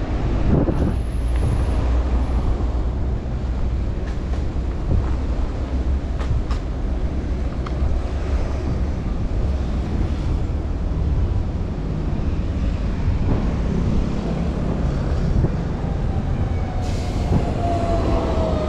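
Wind buffeting the microphone over a steady rumble of street traffic. Near the end a passing vehicle swells in with a rising hiss and a falling tone.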